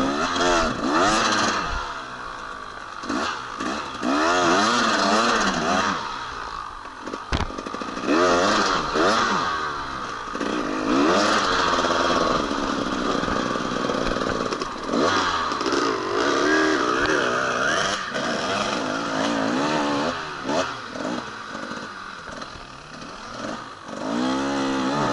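Enduro motorcycle engine revving up and down again and again as it is ridden, its pitch rising and falling every second or two. There is a sharp knock about seven seconds in.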